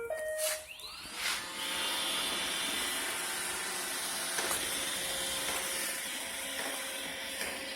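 Roomba 880 robot vacuum ending its start-up tune with a short tone, then its motors spinning up with a rising whine and running steadily with a whirring hiss from about a second and a half in.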